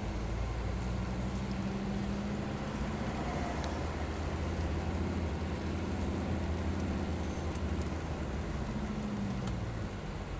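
A car's engine running steadily with tyre and road noise on a wet road, heard from inside the cabin. The engine note sags near the end.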